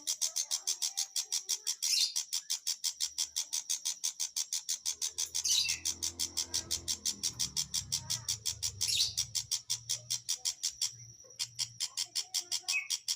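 Long-tailed shrike (pentet macan) calling in a rapid, even series of high chips, about six a second, three times broken by a louder sweeping note, with a short pause near the end.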